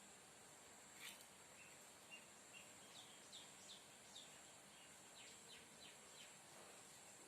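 Near silence with faint bird chirps in the background: a string of short, high, falling chirps, and a faint click about a second in.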